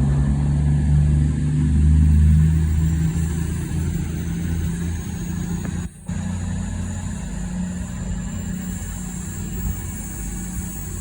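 CrossCountry Voyager diesel multiple unit pulling away from the platform, its underfloor diesel engines running hard under power. The engine sound is loudest about two seconds in, then slowly fades as the train draws away.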